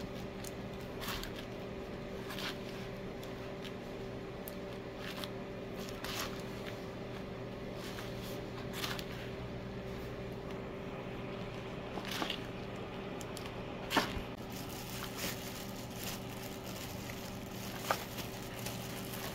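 A plastic spatula scraping and pressing a heap of steamed sticky rice on a plastic-covered tray, giving soft squishes and scattered light clicks, the sharpest about fourteen seconds in. A steady low hum runs beneath.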